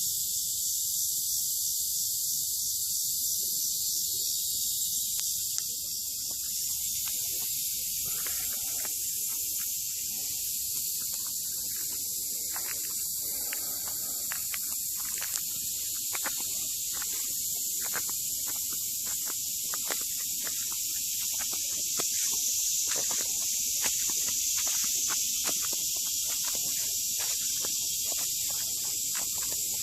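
A steady, high-pitched insect chorus hissing on and on, with faint scattered clicks and rustles from about eight seconds in.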